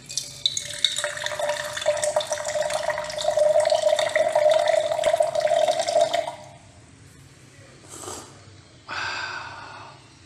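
Channel logo intro sound effect: a dense crackling, fizzing noise over a steady hum that grows louder for about six seconds and then cuts off. A short whoosh follows about eight seconds in, then another swell about nine seconds in that fades away.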